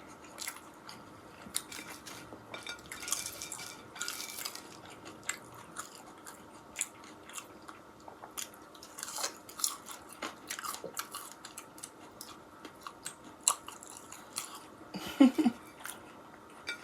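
Close-miked chewing and biting of a bacon cheeseburger and chips: irregular wet mouth clicks and soft crunches.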